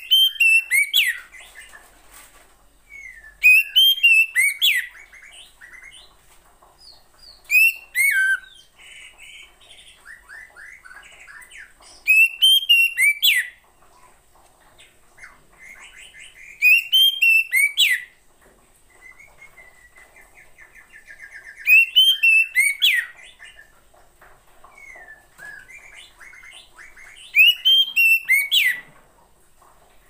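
Female Oriental magpie-robin calling: about seven bursts of rapid, sharp rising-and-falling notes, each about a second long and roughly four to five seconds apart, with softer chirps in between.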